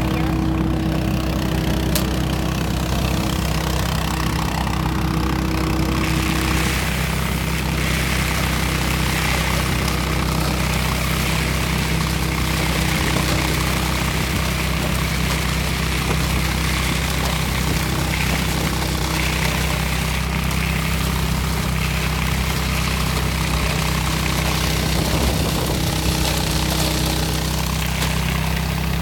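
DR Power lawn and leaf vacuum's gas engine running steadily while its wide intake hose sucks alpaca manure pellets off bare dirt. The air rushing through the hose gets louder from about six seconds in.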